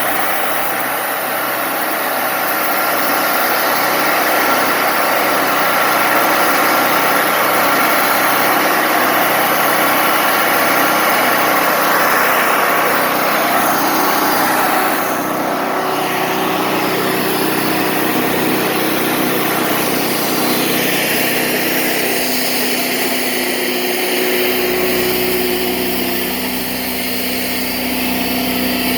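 Wood-Mizer LT40 Wide band sawmill running, its engine and band blade sawing through a log to cut boards. The sound changes about two-thirds of the way through, as the high, hissing cutting noise falls away and the engine drone carries on.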